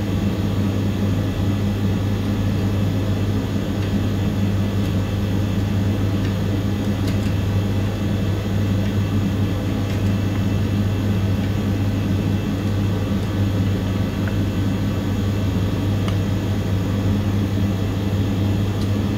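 A steady, unchanging low mechanical hum, with a few faint light clicks.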